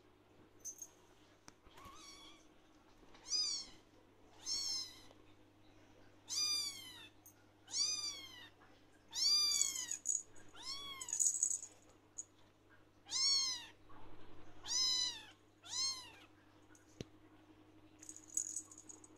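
Ragdoll kitten meowing over and over: about ten high-pitched calls, each about half a second long, rising then falling in pitch. It is a kitten calling for attention from its owner.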